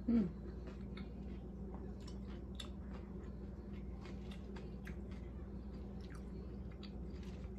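A person chewing food, a taco, with many small wet mouth clicks and squishes at an irregular pace. A brief falling tone, the loudest sound, comes right at the start.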